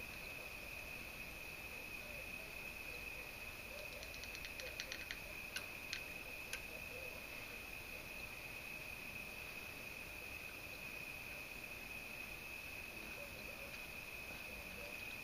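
Faint small metallic clicks as a helicoil insertion tool is handled in the engine's tensioner bolt hole: a quick run of ticks about four seconds in, then three single clicks, over a steady high-pitched tone.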